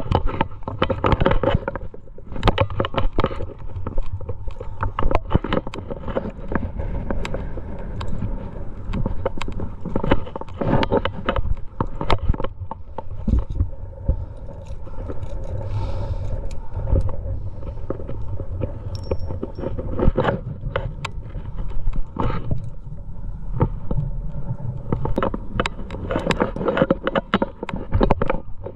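Irregular clinks, knocks and scrapes of a trad climber's gear rack, carabiners and cams, and of hands and shoes on rock as the climber moves up a crack. Under them runs a steady low rumble of wind on the microphone.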